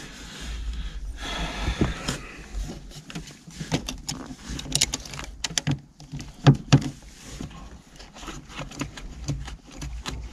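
Irregular clicks, knocks and rustling as hands handle a VW T4's floor-mounted handbrake lever, with two louder knocks about six and a half seconds in, over a low steady hum.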